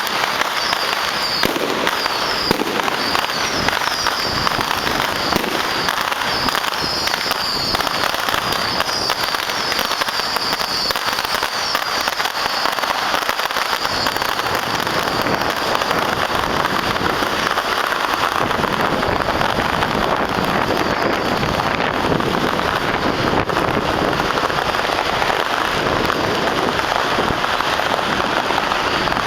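Strings of firecrackers going off in a dense, continuous crackle of rapid pops.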